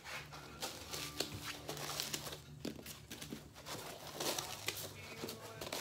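Cut foam insert layers in a gun case being handled, rubbing and scraping against each other and the case: an irregular run of short scuffs and crinkling rustles.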